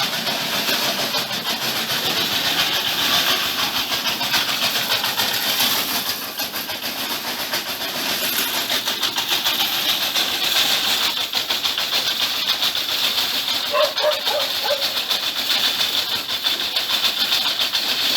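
Septic vacuum truck pumping out a septic tank: its engine and suction pump run steadily under a loud, even hiss.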